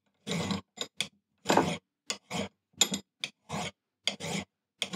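Small fine hand file rasping across the iron handle end of a Record No. 52 vice screw in about a dozen short, unevenly spaced strokes, deburring the edge that the tommy bar's ball has mushroomed over years of use.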